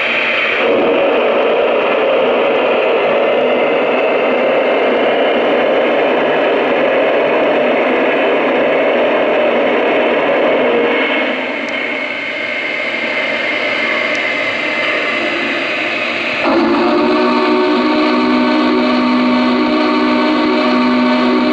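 Lionel O-gauge Union Pacific Big Boy 4004 locomotive's onboard sound system playing a long steam blowdown hiss as its smoke unit puffs from the cylinders, the hiss changing and easing off about eleven seconds in. About sixteen seconds in its steam whistle sounds, a steady multi-note chord held to the end.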